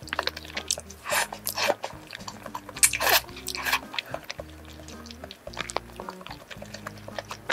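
Close-miked eating sounds: flat pasta noodles and rice cakes in creamy carbonara sauce being slurped and chewed, loudest about three seconds in, over soft background music with steady low notes.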